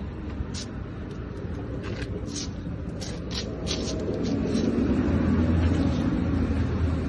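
Isuzu 6HE1 six-cylinder diesel engine running with a steady low hum. It grows louder for a couple of seconds past the middle, as if briefly revved. Short sharp ticks sound over it early on.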